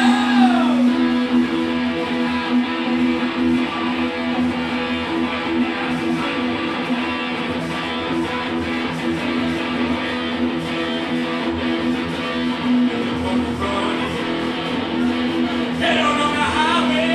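Live band playing, led by strummed guitar, with a steady held low note underneath and a singing voice at the start and again near the end.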